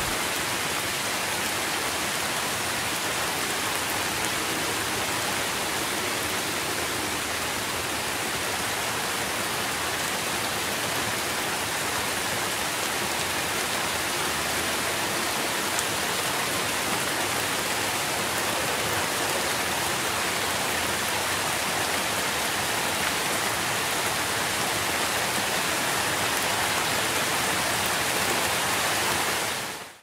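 Steady, unbroken rush of falling water, a waterfall's continuous hiss with no changes, fading out abruptly at the very end.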